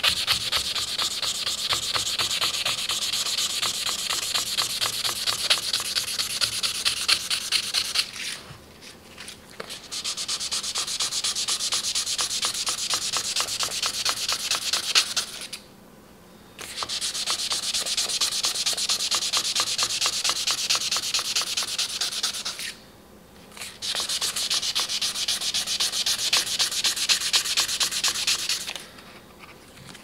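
Sandpaper rubbing on the steel blade face of a Victorinox chef's knife in quick back-and-forth strokes, polishing out scratches. The strokes come in four bouts, with short pauses between them.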